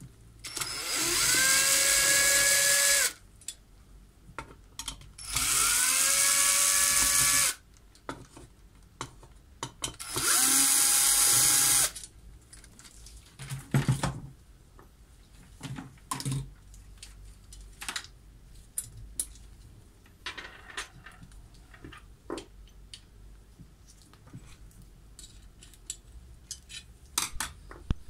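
Cordless drill-driver run three times, about two seconds each, each run rising in pitch as it spins up and then holding a steady whine, the third at a higher pitch, as it backs screws out of the motor's brush-holder plate. Afterwards scattered clicks and light knocks of the loosened screws and parts being handled.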